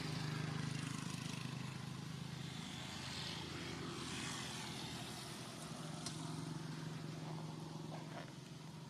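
A steady low motor hum with a faint hiss of outdoor noise. The hum weakens in the middle and comes back more strongly about six seconds in.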